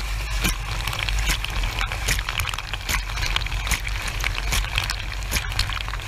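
Dishwasher wash pump running with a steady low hum while the lower spray arm shoots jets of water, the spray hissing and splashing with many sharp ticks of drops striking close by.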